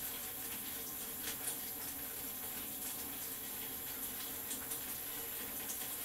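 Steady background hiss with a faint hum under it, and a few faint soft crackles from hair being twisted by hand.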